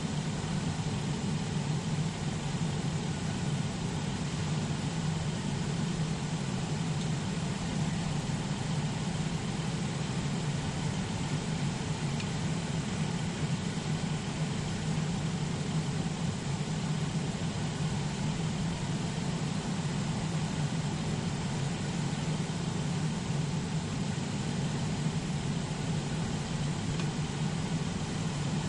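2002 Chrysler Town & Country / Dodge Grand Caravan minivan engine idling steadily with the air conditioning switched on at full blow.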